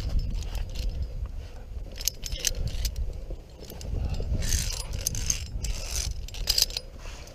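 Via ferrata carabiners and clip hardware jingling and clinking against the steel safety cable in several short bursts as the climber moves along it, over a steady low rumble.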